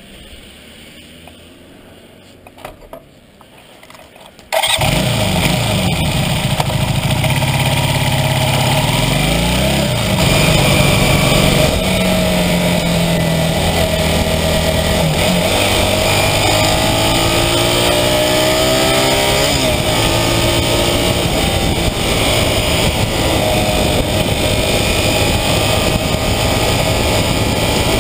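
Low sound for the first few seconds, then, abruptly about four and a half seconds in, the 1982 Honda CB400N Superdream's air-cooled parallel-twin is heard under way, its revs rising and dropping back several times as it goes up through the gears. Heavy wind rush on the microphone runs under the engine.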